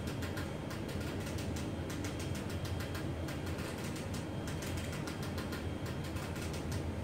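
Electric baby swing cradle running at its fourth speed setting while carrying a 6 kg load: a steady motor hum with rapid, even ticking from the drive mechanism as the cradle swings side to side.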